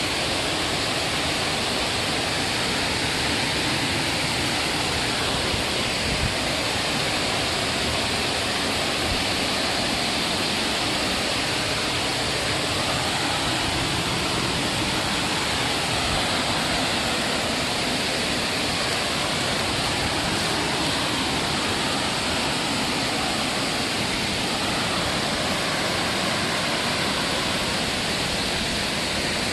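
Waterfall with a heavy flow of water, rushing steadily.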